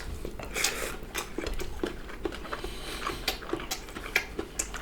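Eating at the table: a run of small, irregular clicks and taps of cutlery against dishes, with a few brief soft mouth sounds.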